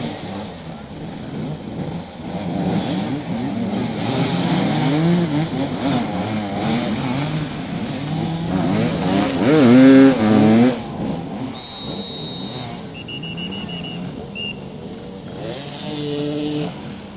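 Several motoball motorcycles running and revving, their engine pitch rising and falling as they manoeuvre. The loudest rev is about ten seconds in. The engines then quieten and a few short, high whistle tones sound.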